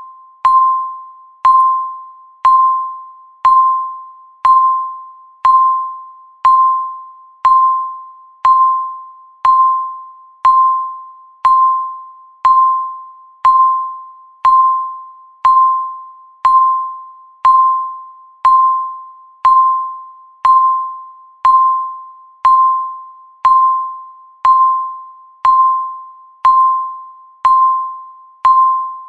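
Countdown timer ticking: a short, ringing electronic tick-tone struck once a second at a steady pace, each one fading before the next.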